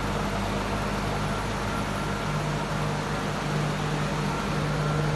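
Walk-in cooler's Buffalo Trident evaporator fans running with a steady hum. Behind it is a faint thin whistle from the refrigerant boiling in the evaporator coil.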